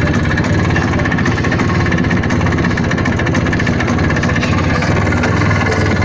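IZh Planeta 5 motorcycle's single-cylinder two-stroke engine idling steadily after a cold start, with a slight ringing that the owner wants to get rid of.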